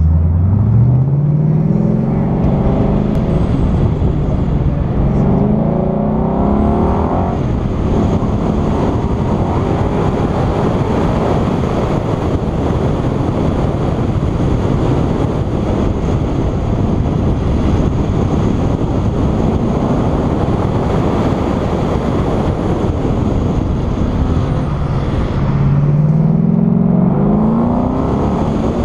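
Stock 2013 Ford Mustang Boss 302's 5.0-litre V8 launching hard from the start of an autocross run, revs climbing steeply, then rising and falling as it is driven through the course over a steady rush of noise. The revs climb hard again near the end.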